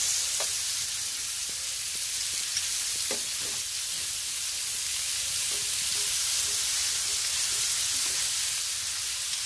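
Zucchini spirals sizzling in a frying pan in olive oil and chicken drippings: a steady high hiss.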